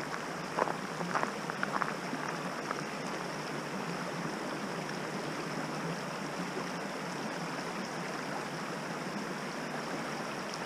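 Creek water running with a steady rushing sound, and a few footsteps in the first three seconds.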